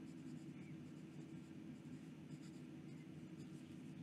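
Fine, stiff nib of a Moonman M80-series fountain pen scratching faintly across notebook paper as words are written, in short irregular strokes, over a steady low hum.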